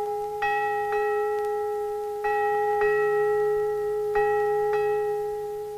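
Small metal bell hanging from a cord, tolling in pairs of strokes about two seconds apart. Each stroke rings a clear note that fades slowly, and the ringing dies away near the end.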